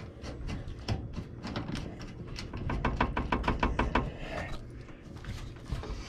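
Rapid run of light clicks and rattling as a washing machine inlet hose's threaded metal coupling is turned by hand onto its water inlet valve, about six or seven clicks a second for a couple of seconds, then scattered handling noise.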